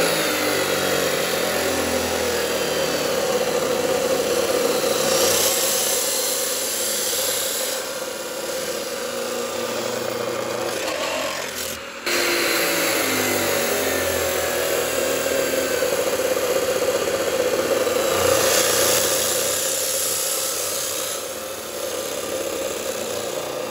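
Abrasive chop saw cutting through perforated square steel tubing, the blade grinding steadily through the metal. There is an abrupt break about halfway through, after which a second cut begins.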